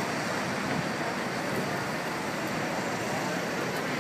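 Steady rumbling noise of a Hong Kong double-decker tram running along its street track, heard from the upper deck, mixed with the surrounding city traffic.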